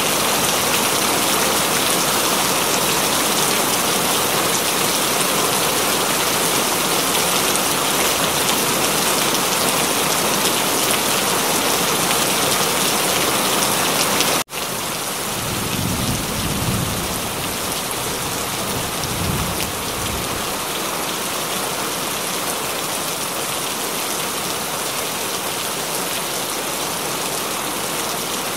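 Steady rain, a dense, even hiss. About halfway it cuts out for an instant and comes back slightly quieter, followed by a low rumble of thunder lasting a few seconds.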